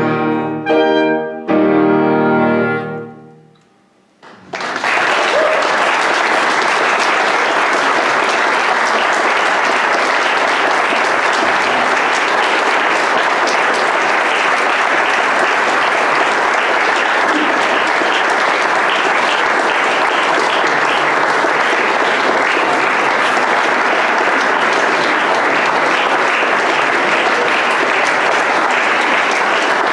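Clarinet and piano play the closing chords of the finale, which ring out and die away. After a moment's silence, audience applause breaks out and runs on steadily.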